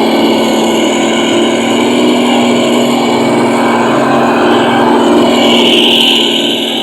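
MN99S Land Rover Defender remote-control car running, giving off a steady engine-like drone with a buzzing pitch. A higher whine swells briefly near the end.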